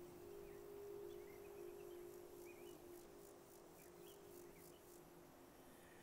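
Faint outdoor ambience: a low, steady drone tone under sparse, scattered bird chirps, with a high, pulsing insect chirr through the middle.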